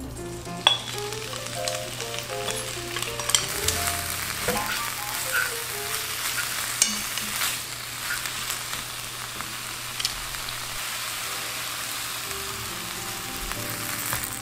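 Rehydrated chwinamul (aster greens) hitting hot oil in a nonstick wok and sizzling steadily as it is stir-fried. Wooden chopsticks tap sharply against the pan a few times.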